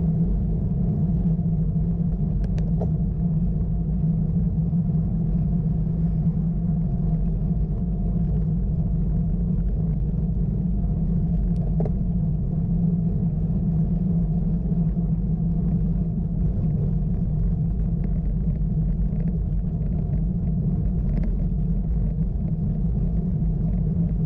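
Steady low rumble of wind and tyre noise on the camera's microphone as a bicycle rides up a road, with two faint clicks, one a few seconds in and one about halfway through.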